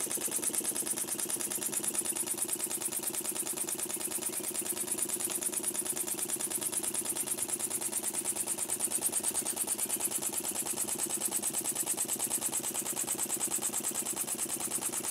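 Small scratch-built single-acting model mill engine with a spool valve, running steadily on compressed air: a rapid, even run of exhaust puffs over a steady air hiss.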